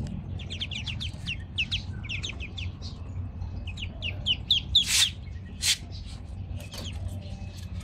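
Newly hatched ducklings peeping: many short, high-pitched chirps in quick runs. A couple of brief scratchy rustles about five seconds in, over a low steady hum.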